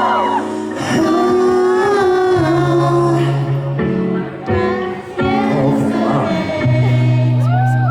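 Live singing over a backing track, with sung melody lines gliding over a steady bass line.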